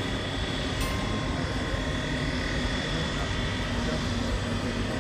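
Steady machinery hum under a rushing noise, with faint steady high-pitched whines on top.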